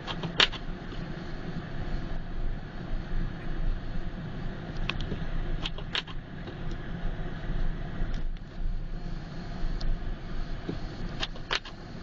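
Car driving on snowy streets: a steady low engine and road drone, broken by scattered sharp clicks, the loudest about half a second in, a few around the middle and a pair close together near the end.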